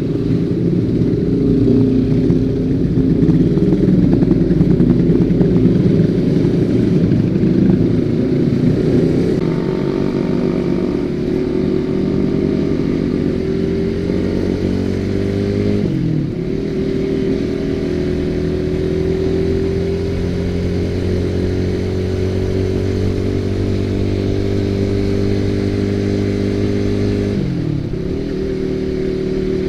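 Honda CB150R's single-cylinder engine running through an aftermarket racing exhaust. It is rough and busy for the first several seconds, then settles to a steady note. The note dips briefly and recovers twice, about 16 seconds in and near the end.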